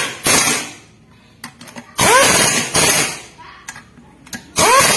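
A power tool run in repeated short bursts, each half a second to a second long and most opening with a quick rising-then-falling whine as it spins up, with a hissing rush throughout each burst.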